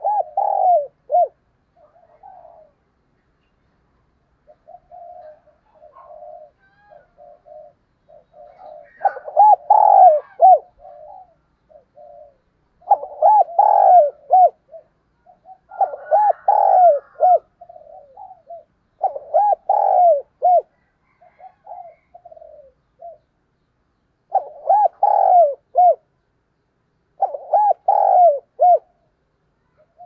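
Caged spotted dove cooing: about seven loud phrases of several rising-and-falling coos each, spaced a few seconds apart, with softer, quieter cooing in between.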